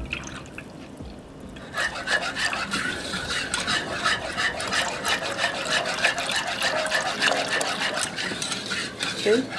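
Milk being poured into a saucepan of roux while a wire whisk beats it, the whisk clicking and scraping rapidly against the pan from a couple of seconds in.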